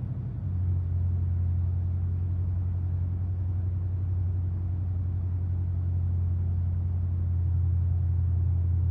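LeCroy WaveSurfer 44MXs-B oscilloscope's cooling fans running as the instrument boots: a steady low hum that comes up about half a second in.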